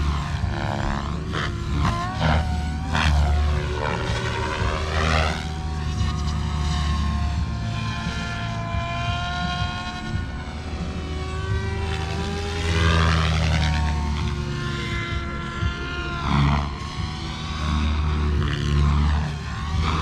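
SAB Kraken 580 electric RC helicopter flying and manoeuvring overhead. The whine of its motor and rotors sweeps up and down in pitch again and again as it swoops and passes.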